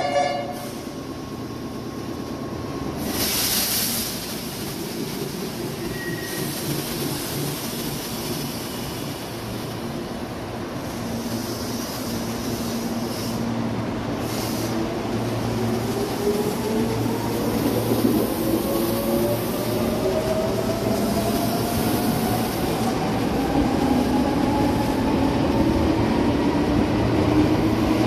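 Meitetsu 6000-series electric train with a 6800-series set pulling out of the station: a short hiss of air about three seconds in, then the motors whining in several tones that rise steadily in pitch as the train accelerates.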